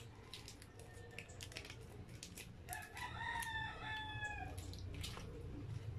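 A rooster crows once, a call of under two seconds starting about three seconds in. Around it come the short crinkles and clicks of plastic seasoning sachets being squeezed and handled.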